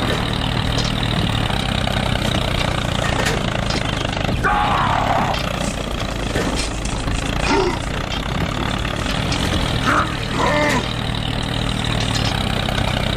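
Tractor engine running steadily at an even low idle. A few short, high-pitched, voice-like squeaks sound over it.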